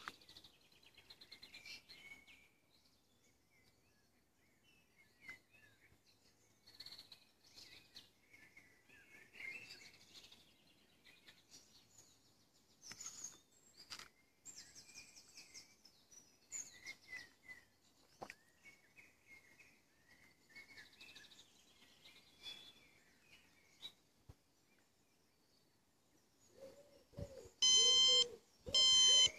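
Faint garden birds chirping on and off, then near the end a BlueFly electronic variometer sounds a few loud, pitched beeps, the vario's climb tone as the device is lifted up.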